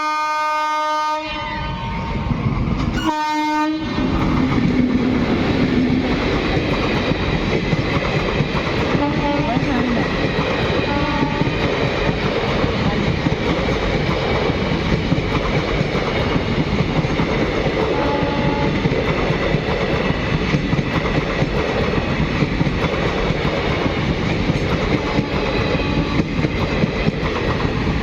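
Indian Railways electric express train sounding its horn: one blast ending about a second in and a second short blast about three seconds in. Then the train runs past at speed, a loud steady rush of wheels on rail with rapid clickety-clack.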